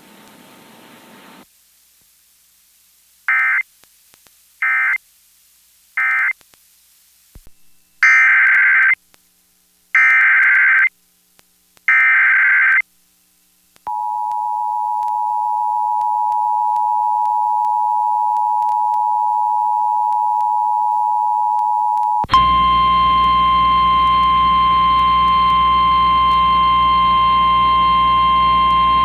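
Emergency Alert System signalling: three short end-of-message data bursts, then three longer data bursts of the SAME header announcing the next alert. These are followed by the two-tone EAS attention signal held for about eight seconds, which then switches abruptly to a harsher, noisier single alert tone, the NOAA Weather Radio warning alarm.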